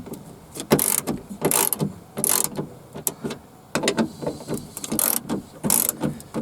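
A hand ratchet clicking in repeated back-and-forth strokes, a burst of clicks with each swing, as it loosens a fastener on the window-regulator bracket inside a car door.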